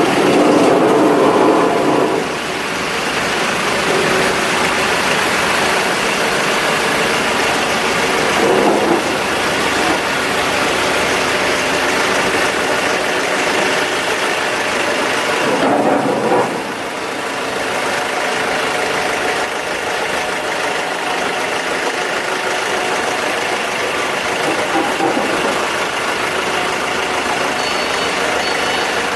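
Diesel generator set engine running steadily, with a few brief louder swells.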